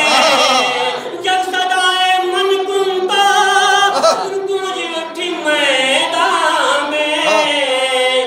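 A man's voice through a microphone and PA chanting devotional verse in a sung, melodic recitation, with long held notes that bend in pitch and short breaks between phrases.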